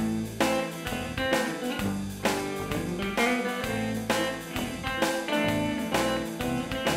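Background music led by guitar, with bass notes and a steady rhythm of plucked or strummed chords.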